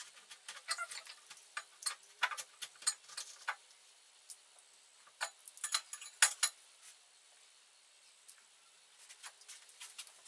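Eggshell crackling and clicking as small fingers pick the shell off a hard-boiled egg, in irregular clusters of sharp clicks with short pauses between them.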